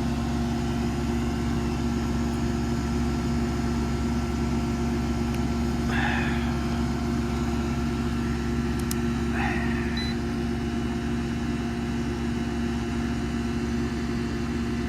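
A 1996 outdoor AC condensing unit running, its compressor and condenser fan making a steady electrical hum with a low rumble. Two short chirps sound about six and nine and a half seconds in.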